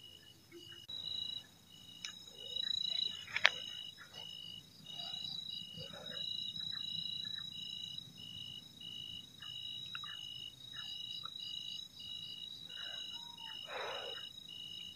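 Night chorus of calling insects: a high pulsed call repeating two to three times a second over a constant high drone. Scattered soft rustles, and one sharp click about three and a half seconds in.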